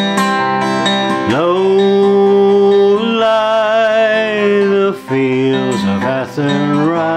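A man singing with a strummed Takamine acoustic guitar. About a second in, his voice swoops up into one long note with vibrato. Near the end it breaks into a few shorter sung syllables.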